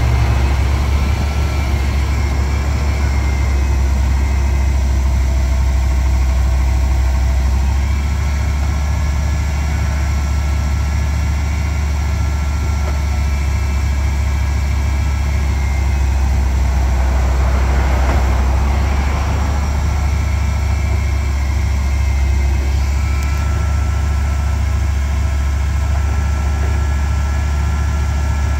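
Bucket truck's engine idling steadily while its hydraulics move the boom and bucket: a loud low drone with faint high whining tones that change pitch a few times, and a brief hiss swelling about eighteen seconds in.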